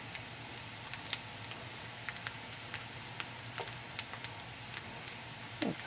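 Sliced red onions sizzling in hot oil in a frying pan: a steady hiss with scattered small crackles and pops as the onions fry toward golden brown for a fried-onion garnish.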